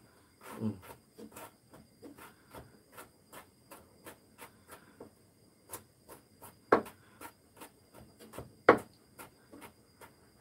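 Kitchen knife chopping vegetables on a wooden cutting board, mincing them fine: a steady run of sharp taps about three a second, with a couple of louder knocks about seven and nine seconds in.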